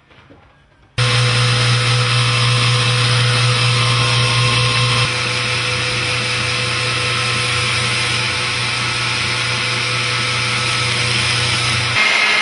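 Stationary woodworking machine and its dust collector running steadily, a constant hum with a steady whine above it, as a cedar humidor box is worked along the fence. It starts abruptly about a second in and gets slightly quieter about five seconds in.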